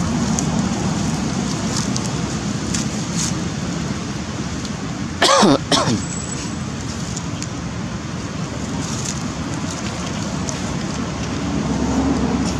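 Steady low hum of road traffic. About five seconds in, a short loud call slides steeply down in pitch, and a briefer second one follows.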